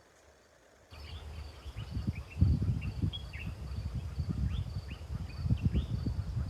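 After about a second of near silence, outdoor ambience starts suddenly: birds giving many short, falling chirps over a steady pulsing insect trill, with a loud low rumble on the microphone underneath.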